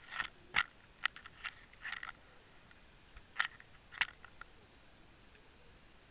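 Sharp clicks and knocks heard underwater, about a dozen at irregular spacing in the first four and a half seconds, then only a faint hiss.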